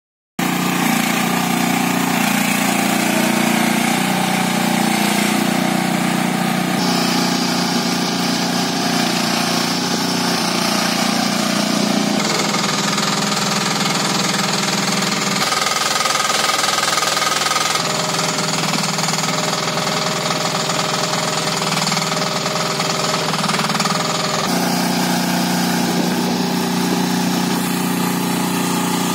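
Breckner Germany mini excavator's single-cylinder air-cooled engine running steadily, its note changing every few seconds as the machine tracks and works its arm.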